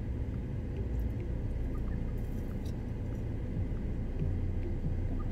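Crisp youtiao (fried dough fritter) being bitten and chewed, a few faint crunchy crackles heard over the steady low rumble of a car cabin.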